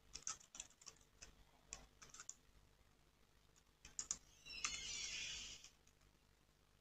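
Faint typing on a computer keyboard: scattered keystroke clicks through the first two seconds and a few more about four seconds in. Near the middle comes about a second of scratchy rustling noise, the loudest sound here.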